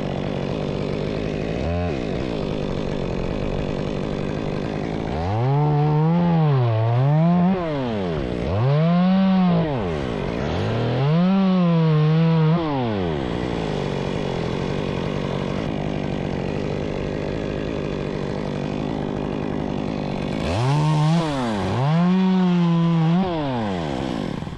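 Two-stroke chainsaw idling, then revved up to full speed and held there four times, dropping back to idle after each. There is a brief dip in pitch partway through the first run-up.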